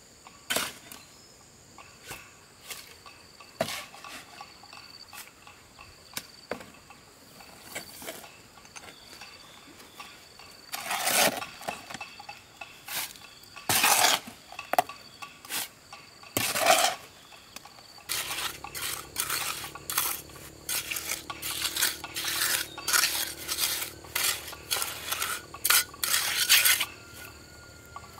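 Irregular clinks and knocks, a few louder bangs in the middle, then a quick run of clatter over a low steady hum in the last third. A constant high chirring of insects runs underneath.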